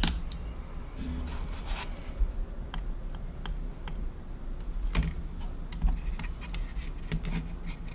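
Scattered small clicks and taps from hands and metal tweezers handling a plastic scale model on a cutting mat, with a few low, dull bumps.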